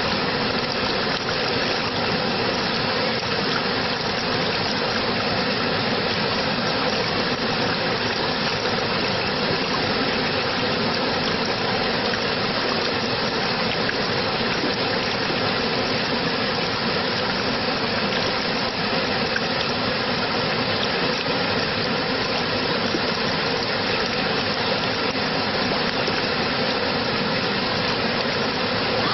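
Steady rushing water, an even unbroken hiss that holds the same level throughout.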